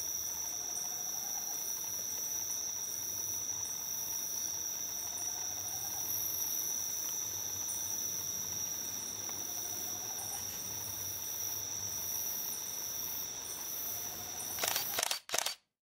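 Night insects trilling: a steady, high-pitched chorus that holds unbroken. Faint short low calls come every few seconds beneath it. Near the end come a few loud clicks, and then the sound cuts off abruptly.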